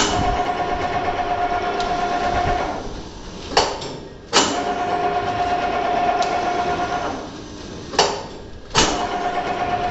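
MSP-200 jumbo auger vertical sachet packaging machine running through its bagging cycle: a pair of sharp clacks twice, about four and a half seconds apart, each pair followed by a steady motor whine lasting a couple of seconds.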